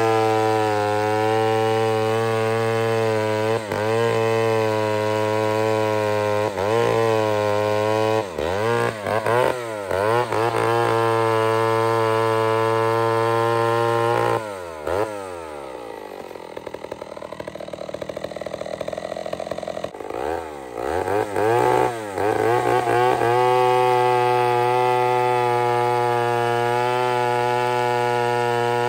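Two-stroke 107 cc Pioneer chainsaw with a .404 skip-tooth chain running at full throttle while cutting a large log round, its pitch dipping briefly several times. About halfway through the revs drop to idle for several seconds, then the saw revs back up and runs steadily under load.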